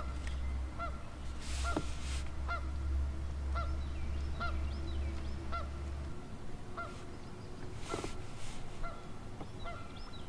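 A goose honking over and over, about one short honk a second. A low hum runs under it for the first six seconds, and there are two brief rustles, about two seconds in and near the end.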